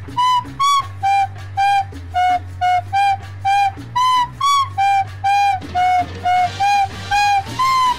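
Background music: a flute-like tune of short, separate notes, about two a second, over a low steady hum.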